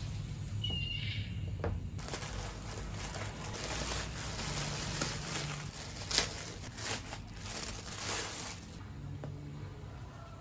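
Clear plastic packaging crinkling and crackling as it is handled and opened to take out a pillowcase, with a sharp crackle about six seconds in. The crinkling stops near the end, leaving quieter handling.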